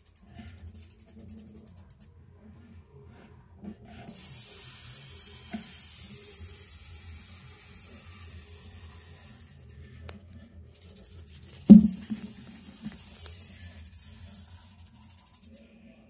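Sidewinder rattlesnake's rattle buzzing in long stretches, a rattlesnake's defensive warning. It breaks off twice for a second or two. One sharp, loud knock comes about two-thirds of the way through.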